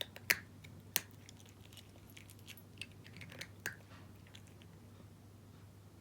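A cat crunching dry kibble, a run of sharp, irregular crunches that thin out after about four seconds.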